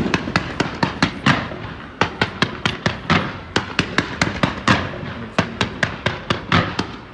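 Fireworks bursting in rapid succession, about three or four sharp bangs a second, starting abruptly and thinning out near the end.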